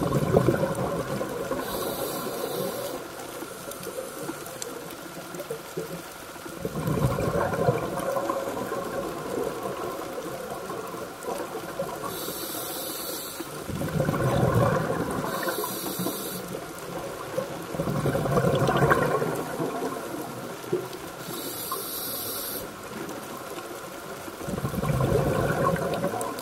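Scuba diver breathing through a regulator underwater. Exhaled bubbles gurgle out in a loud burst every five to seven seconds, with short high-pitched hissing inhalations between them.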